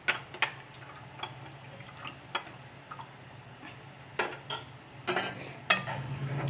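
Scattered clinks and taps of a metal spoon against kitchen bowls and a pot, about eight in all, busiest in the second half, over a steady low hum that grows louder near the end.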